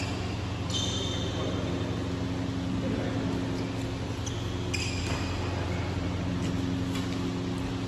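Badminton rackets striking a shuttlecock during a rally: sharp string pings with a short ringing tail, two louder ones about a second in and near five seconds, and lighter hits between, over a steady low hum.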